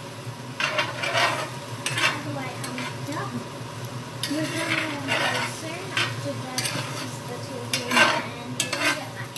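Chicken and broccoli in teriyaki sauce sizzling in a frying pan over a gas flame, stirred with a metal spoon that scrapes the pan in short strokes every second or so. A steady low hum runs underneath.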